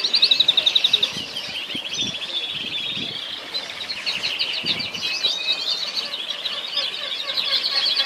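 Several orange domestic canaries singing at once, a continuous overlapping stream of fast rolling trills and short chirps, loudest in a rapid roll at the start.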